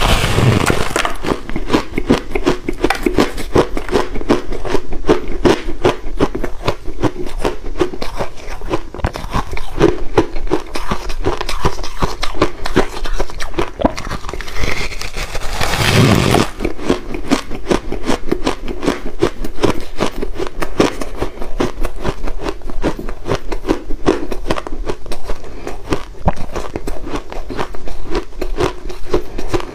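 Close-miked biting and chewing of frozen ice chunks mixed with passion fruit: a dense, rapid run of crackling crunches. There are bigger bites right at the start and again about halfway through.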